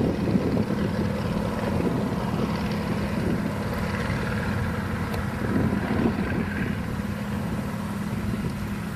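Propeller and 230 hp piston engine of a closed-wing light aircraft droning steadily in flight overhead, slowly fading as the aircraft moves away.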